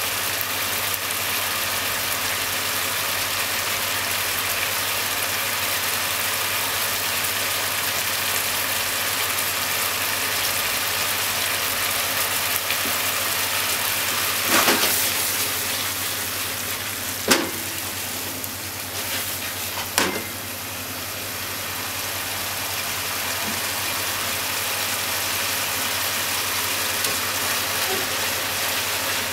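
Pork and onion simmering in sauce in a frying pan, a steady sizzle. About halfway through come three sharp knocks a few seconds apart.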